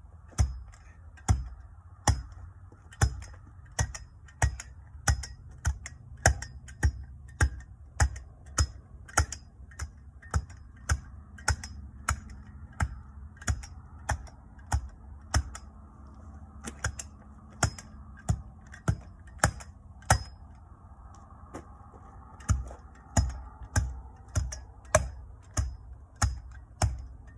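Repeated heavy tamping blows compacting QPR cold-patch asphalt into a pothole, each a thud with a sharp click, about one and a half a second, pausing briefly about two-thirds of the way through.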